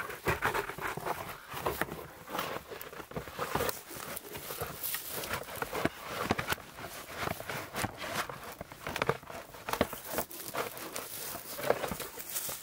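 Birch bark being peeled by hand from a fallen birch log: a run of irregular crackles and rustles.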